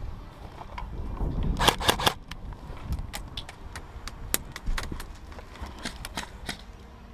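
Airsoft guns firing in a game: sharp cracking shots, a quick cluster about two seconds in, then scattered single shots and short strings, over low wind rumble on the microphone.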